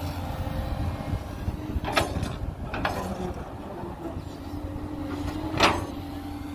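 JCB 210 tracked excavator's diesel engine running steadily under digging load, with three sharp metallic clanks from the working bucket and arm, the loudest near the end.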